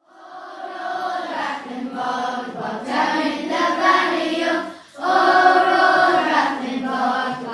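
A choir of children's voices singing a song in sustained, held notes, with a short pause for breath about five seconds in.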